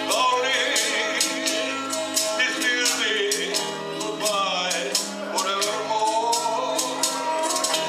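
Karaoke backing track playing a slow ballad with a steady beat, a man singing over it into a microphone.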